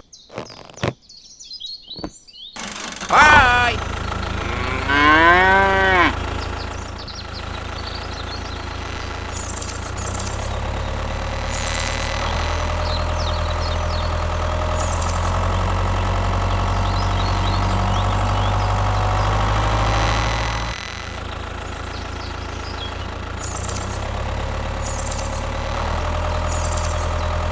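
A cow mooing twice, a few seconds in, with long calls that bend in pitch. Then a small engine runs with a steady low drone, dipping briefly about three-quarters of the way through.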